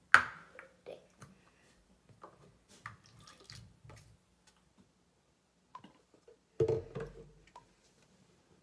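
Mouthwash poured from a plastic bottle into a small paper cup, with light dripping and trickling and small handling clicks, after a sharp sound at the very start. A louder thump about seven seconds in.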